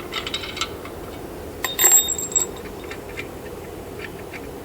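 Small steel parts clinking against metal while a clutch installation tool is taken apart: a few light clicks, then a loud ringing clink about two seconds in, then scattered ticks.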